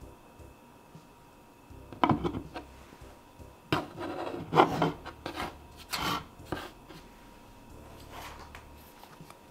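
A phone in a plastic case is set down and shifted about on a wooden tabletop. There is a sharp knock about two seconds in, then a string of rubs and scrapes of the case against the wood, which die away after about seven seconds.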